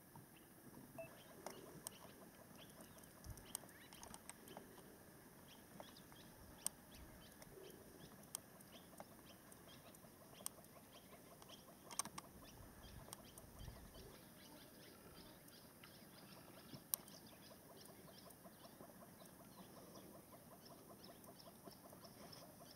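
Near-silent bush ambience with faint small chirping calls of birds throughout, broken by three sharp clicks, the loudest about halfway.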